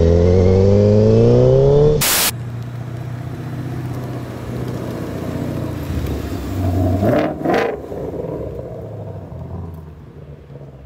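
Honda CBR1000RR inline-four engine accelerating, heard from on the bike, its pitch climbing steadily until it cuts off abruptly about two seconds in. Then a 2020 Shelby GT500's supercharged V8 rumbles low as the car rolls slowly, with a brief louder swell about seven seconds in, fading near the end.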